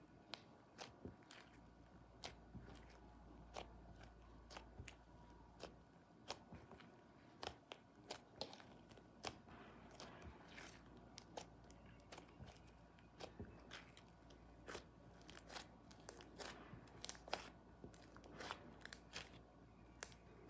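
Butter slime being kneaded and pressed by hand, giving irregular sharp pops and crackles, a couple a second.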